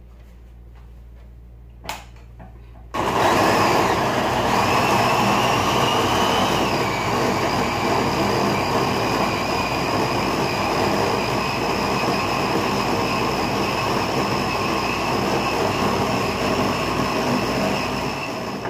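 Electric mini chopper's motor running steadily for about fifteen seconds, blending tomato, garlic and shallots into a coarse paste, its whine dropping slightly in pitch a few seconds after it starts. A click about two seconds in comes just before the motor starts.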